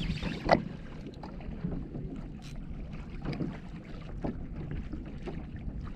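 Wind buffeting the microphone over water lapping and splashing against a kayak hull, with scattered small knocks and a sharper knock about half a second in.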